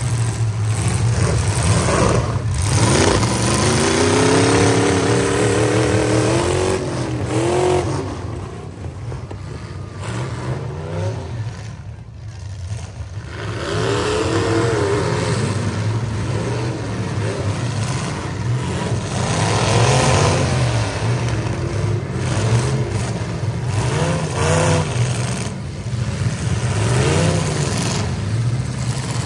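Demolition derby pickup trucks' engines revving hard, the pitch rising and falling again and again as they ram one another, with occasional hits of metal on metal.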